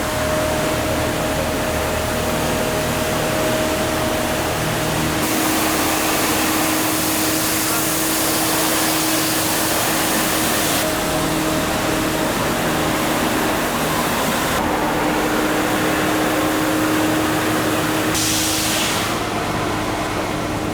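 Vacuum road sweeper truck running, a steady held tone over a loud rushing hiss of suction. The hiss grows brighter for several seconds in the middle and surges briefly near the end.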